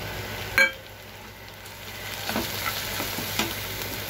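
Chopped onion, garlic and chili sizzling in oil in a frying pan just as ground spices go in, with one sharp ringing clink about half a second in. From about two seconds in a steel ladle stirs the mix, knocking and scraping against the pan a few times.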